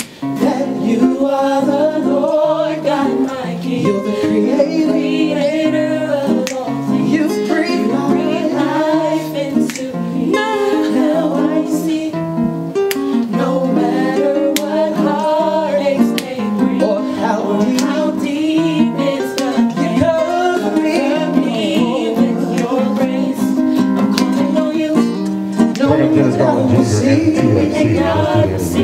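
Music: a song with guitar and singing, the low end growing fuller near the end.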